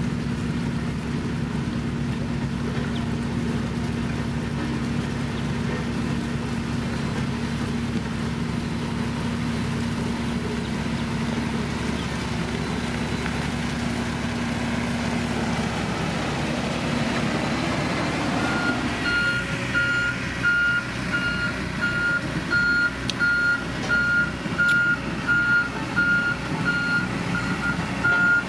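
A heavy road-construction machine's engine running steadily. About two-thirds of the way through, its reversing alarm starts and beeps on at an even pace over the engine.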